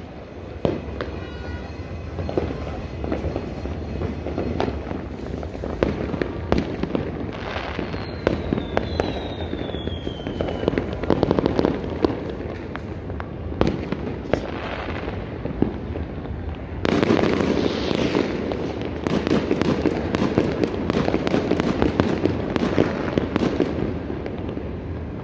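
Fireworks and firecrackers going off all around in a continuous run of bangs and crackles. A falling whistle comes about eight seconds in, and from about seventeen seconds in a denser, louder stretch of rapid crackling sets in.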